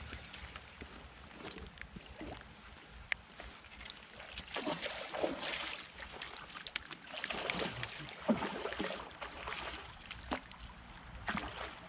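Water splashing and sloshing in several irregular bursts at the river's edge as a hooked zander is landed.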